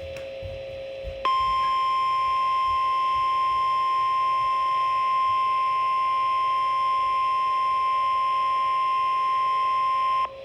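NOAA Weather Radio warning alarm tone: one loud, steady high tone of about nine seconds that comes in about a second in and cuts off just before the end. It is the 1050 Hz alert signal that precedes a warning broadcast, here a tornado warning. A quieter, lower tone sounds for the first second.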